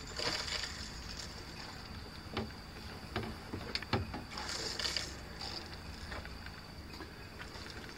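Faint small clicks and brief soft hisses as a hand squeezes the rubber bulb of a Qwik-Fill battery watering system, pushing distilled water through the tubing into the battery cells, over a low steady rumble.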